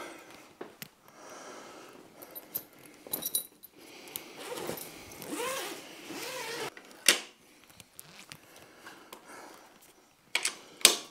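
A nylon bike carry bag rustling as it is pulled off and worked around a folded e-bike, with scattered metallic clinks and knocks. A sharp knock comes about seven seconds in, and another near the end.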